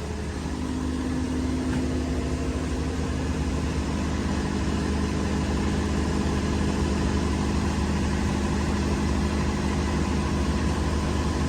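Steady mechanical hum of a motor running at constant speed, a low drone with a steadier, slightly stronger tone setting in about half a second in.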